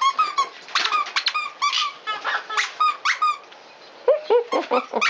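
Plush squeaky dog toys squeaked over and over as the dogs chew them: many short high squeaks in quick succession, then lower-pitched squeaks near the end.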